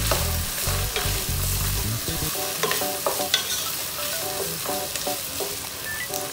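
Ground beef sizzling in a nonstick pot while a wooden spatula stirs and scrapes through it, with scattered clicks of the spatula against the pot. A low hum under it cuts off about two seconds in.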